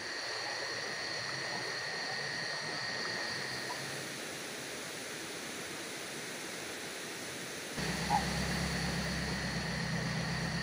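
Steady rush of a nearby river, with a faint high steady whine over it. About eight seconds in, a low steady hum comes in suddenly and carries on.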